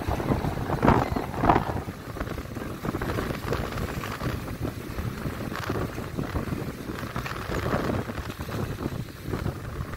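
Wind buffeting the microphone on a moving motorbike, over the bike's running and road noise, with louder gusts about one and one and a half seconds in.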